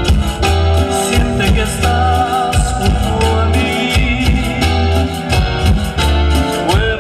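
Latin dance music played loud, with a steady pulsing bass, fast shaker-like percussion and melody.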